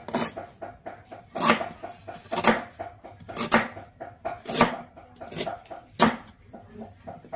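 A kitchen knife slicing galangal root thin on a chopping board, about one sharp chop a second, seven in all.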